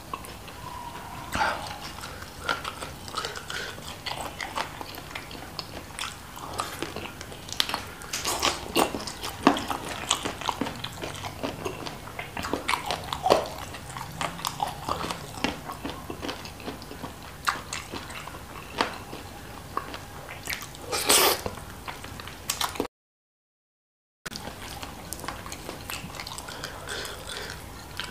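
Close-up mouth sounds of eating spicy chicken feet: wet chewing, lip smacking and sucking on the soft bones, heard as a stream of sharp, irregular clicks and pops. The sound drops out to dead silence for about a second near the end.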